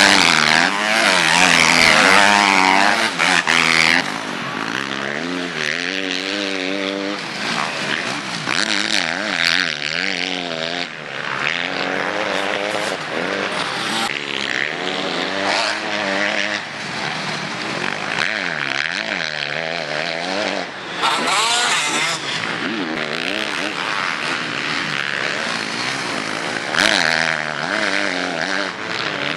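Motocross bike engines revving up and down under hard throttle, the pitch rising and falling repeatedly as riders accelerate and back off, loudest in the first few seconds.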